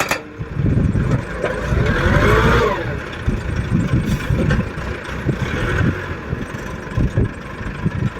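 Engine of a DD950B crash barrier installation machine running with an uneven low rumble, with a brief whine that rises and falls about two seconds in.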